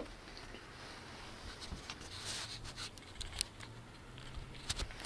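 Faint scattered clicks, ticks and rustles of small handling noises, with a faint low hum coming in about four seconds in.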